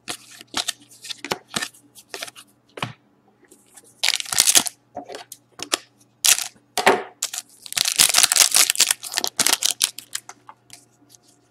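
Foil trading card pack being cut open with scissors and its wrapper crinkled and pulled off, with short scrapes from cards being handled. The crinkling is loudest in a burst about four seconds in and in a longer stretch from about seven and a half to nine and a half seconds.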